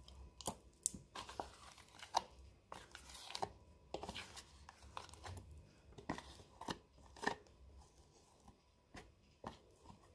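Faint, irregular taps, clicks and short scrapes of butter being cut up and added to a bowl of flour for pastry dough.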